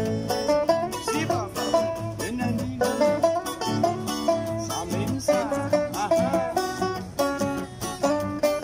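Resonator banjo played solo in a quick, continuous run of picked notes, with a couple of passages where the notes slide and bend in pitch.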